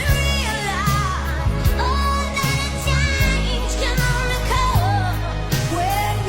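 Background pop song with a sung melody over a steady bass and beat.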